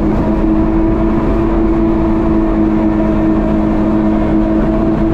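Kawasaki jet ski's engine running steadily at cruising speed, holding one pitch, under a heavy rush of wind and water.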